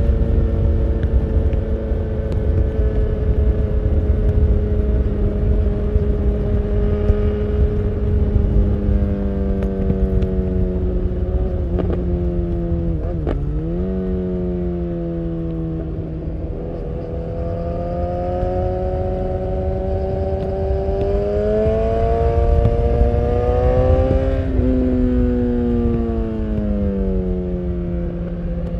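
BMW S1000R inline-four engine running through an Akrapovic full exhaust while riding. It holds steady revs, drops sharply in pitch about halfway through and picks up again, then climbs steadily under acceleration before easing off near the end. Wind rushes over the microphone throughout.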